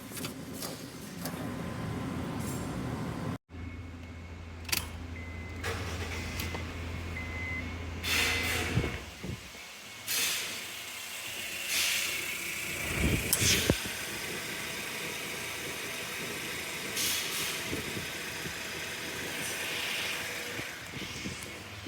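Car engine running, with several short sharp knocks and noises along the way and a sudden cut about three and a half seconds in.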